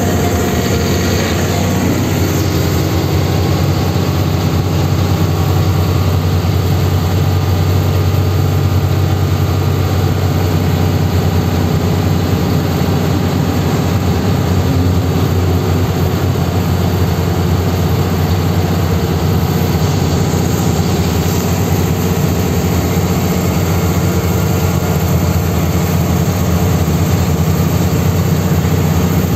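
Truck's diesel engine running steadily under way, a loud, even low drone over road noise, heard from inside the cab.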